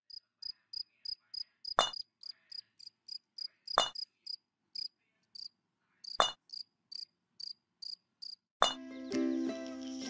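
A cricket chirping in short, even chirps, about three or four a second, with a few louder clicks about every two seconds. Music comes in near the end.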